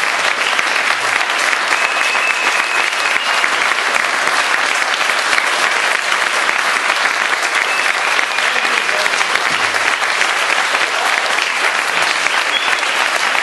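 A small group of people applauding steadily, continuous hand-clapping.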